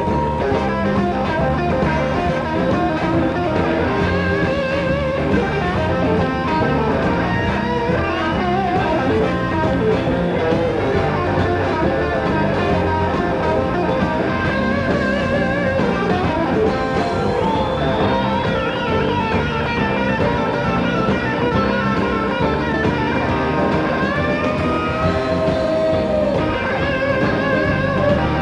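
Live blues band jam with a lead electric guitar solo on a Telecaster-style guitar over bass and drums. The guitar has bent notes that slide up and down at several points.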